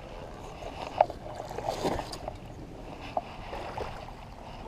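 Light water sloshing with a few small knocks, over a steady outdoor hiss.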